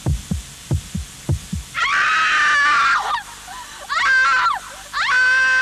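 Low thuds in pairs, like a heartbeat, about every 0.7 s, stopping after about a second and a half. Then a high, wailing falsetto voice comes in with three long, drawn-out notes that slide up and down in pitch.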